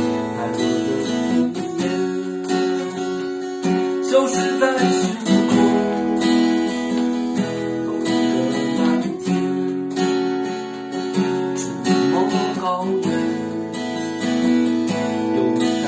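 Acoustic guitar strummed in steady chords, an instrumental passage of a song with no singing heard.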